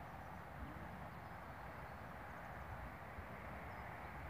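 Quiet outdoor ambience: a steady low rumble and hiss, with a few faint high chirps.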